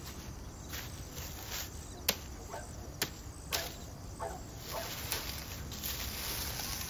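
Insects, such as crickets, buzzing steadily in a high hiss, with a few sharp clicks about two, three and three and a half seconds in.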